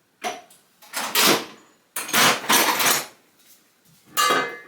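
Hand tools working the bolts on an LS1 engine during teardown: four short bursts of metallic rasping and clatter, the longest in the middle.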